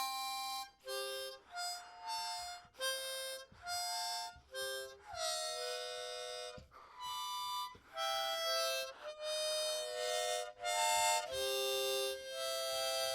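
Harmonica played in a string of short breathed notes and chords separated by brief gaps, then longer held chords; about 5 s in, one chord bends slightly down in pitch.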